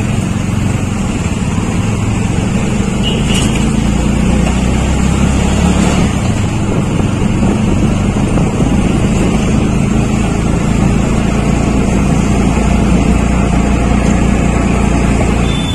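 A motor vehicle's engine running steadily while driving, heard from on board, over road noise.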